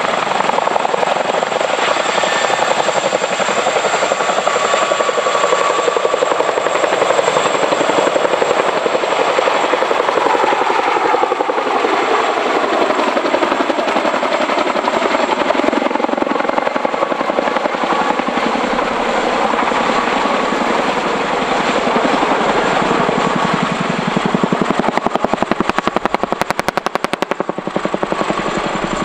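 CH-47J Chinook tandem-rotor helicopter with twin turboshaft engines lifting off and climbing away overhead: a loud, steady rotor beat over the turbines, with a thin high whine throughout. Near the end the rotor beat pulses more plainly.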